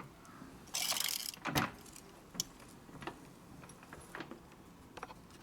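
Handling noises: a short rustle about a second in, a single sharp knock just after it, then a few faint scattered clicks.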